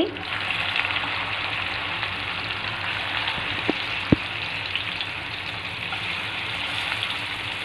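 Spice-marinated fish pieces sizzling steadily as they shallow-fry in hot oil on a flat pan, with two short clicks a little past the middle.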